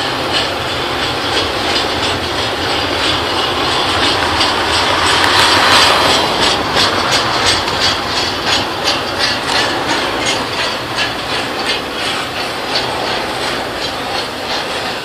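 Double-stack intermodal freight train rolling past, its steel wheels clacking over the rail in a quick, even rhythm that is loudest about six seconds in.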